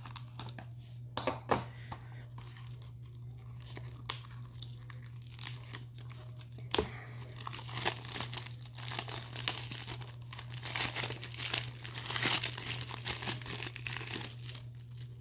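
Plastic shrink-wrap being cut open and peeled off a Blu-ray case: a few sharp clicks in the first half, then continuous crinkling and tearing of the plastic from about seven seconds in.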